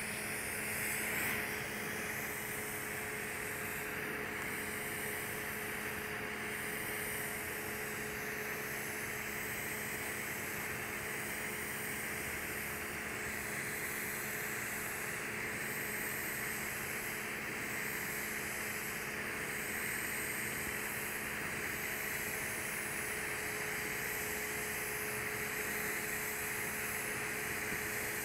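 TIG welding arc at about 140 amps running a cap bead on Monel 400 (nickel-copper alloy) pipe: a steady hiss with a faint hum under it.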